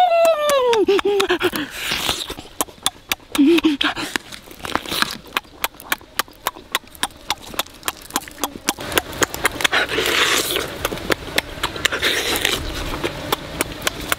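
Open-mouthed chewing and lip-smacking while eating roast duck: a steady run of sharp wet smacks, several a second. At the very start a voice hums a long rising-then-falling note.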